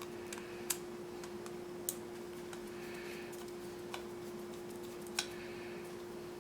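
Small plastic model-kit parts clicking and tapping as they are handled and fitted together: four sharp clicks, a second or more apart, over a steady low hum.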